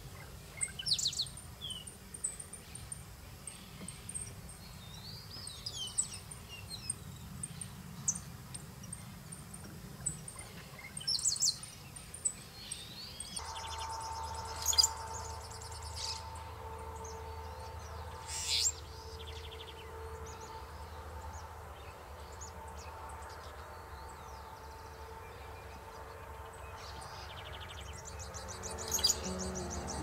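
Male shiny cowbird singing: creaky, throaty notes ending in a loud, high whistle, repeated every few seconds.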